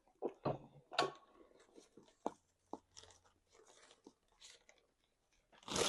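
Close-miked mouth sounds of a person chewing and biting food, with irregular wet smacks and clicks. Just before the end a loud rustling starts.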